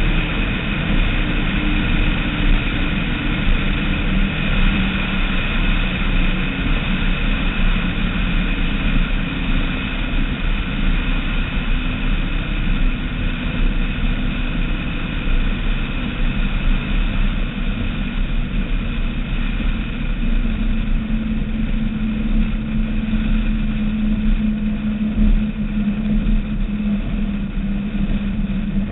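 Skater catamaran powerboat's engines running at speed in a steady drone, mixed with wind and water rush. The low engine note grows stronger about two-thirds of the way through.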